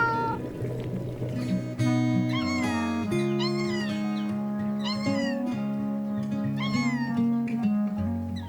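A cat meowing about four times, short rising-and-falling meows a second or two apart, over gentle background music.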